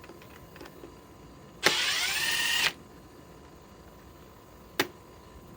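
Third-generation Milwaukee M12 impact driver set to a slow speed, run on a small fastener in a stump. It spins for about a second, its motor whine rising and then holding steady. A sharp click follows near the end.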